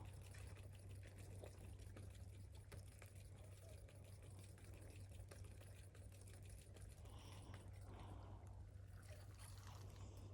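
Near silence: faint trickling, lapping water over a steady low hum, with soft scattered ticks.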